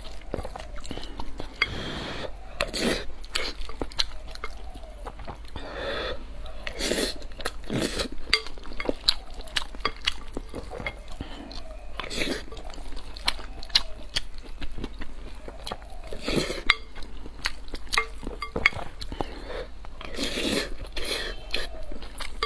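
A person eating close to the microphone: repeated chewing and crunchy bites, with utensils clinking against dishes now and then.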